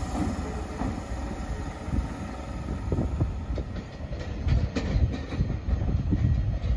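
Electric multiple-unit trains at a station platform: a steady electrical hum at first, then a low rumble with irregular clicks of wheels over rail joints.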